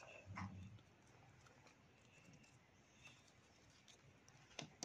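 Near silence, with faint handling sounds of play dough being pushed into a plastic dough extruder: a soft low rub shortly after the start and a small click near the end.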